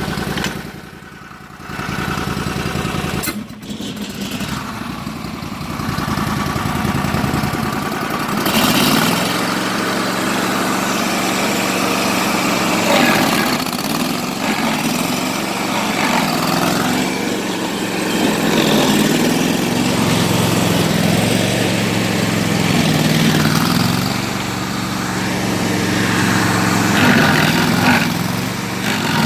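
Bandit ZT1844 stump grinder's engine running. About eight seconds in, a louder grinding noise joins, and the engine pitch sags and recovers several times as the cutter wheel takes load.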